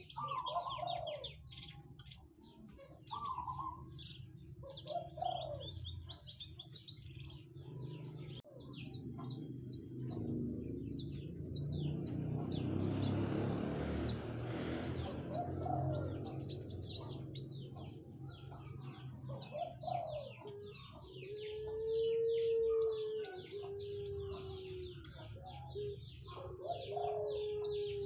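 Javan bush lark (branjangan) singing a fast, continuous chattering song of high chirps, while lower slurred whistles sound every few seconds. A rush of noise swells and fades about halfway through.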